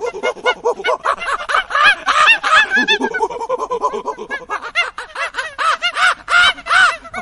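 Animals calling: a rapid, overlapping run of short rising-and-falling calls, several a second, loudest around two seconds in and again near the end.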